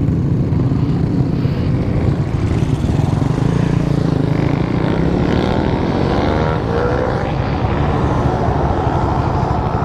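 Motorcycle engine running under way with wind rushing over the microphone. Its pitch climbs in the middle as it accelerates.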